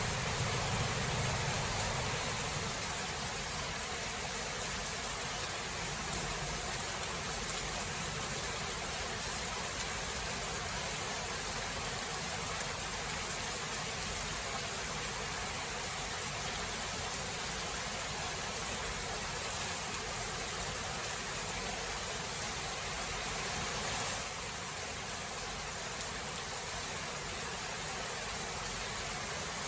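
Steady hiss of heavy rain from a thunderstorm, with the last low rumble of thunder dying away in the first couple of seconds.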